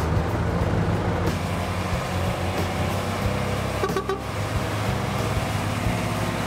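Diesel engine of a log truck loaded with tree trunks, running as the truck drives past, with a short horn toot about four seconds in.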